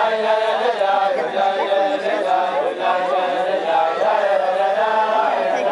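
A crowd of men singing a melody together, many voices in chorus, with held notes that rise and fall.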